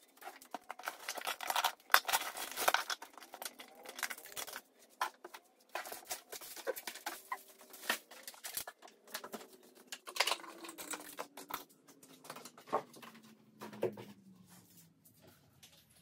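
Books and papers being handled and set down on a shelf: soft rustling and light scattered knocks, fading out about two seconds before the end.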